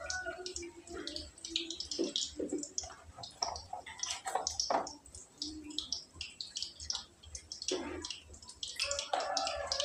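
Grated coconut squeezed by hand in water to press out coconut milk: irregular wet squishing with drips and small splashes into the basin and pot.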